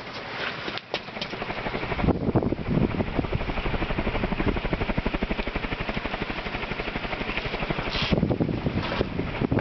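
Cast-iron spinner motor ceiling fan running on high. From about two seconds in, the air pushed by its blades beats on the microphone in a fast, even pulsing. It runs slower on high than it should, which the owner puts down to a drifting or failing capacitor.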